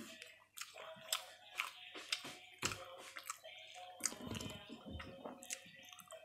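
A person chewing and biting into a toasted sandwich, close to the microphone, with a string of sharp crunchy clicks and soft mouth sounds.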